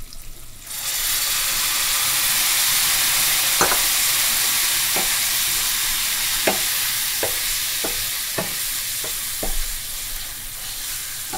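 Onions and raisins frying in a skillet, the sizzle surging suddenly about a second in as liquid saffron hits the hot oil. The pan is then stirred, with about eight sharp clicks of the utensil against the skillet.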